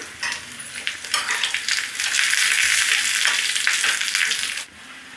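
Chana dal, peanuts, garlic, ginger, curry leaves and dried red chilli frying in a little oil in a small steel tadka pan, stirred with a steel spoon. A few scrapes and taps come first, then about a second in a steady sizzle takes over and cuts off suddenly near the end.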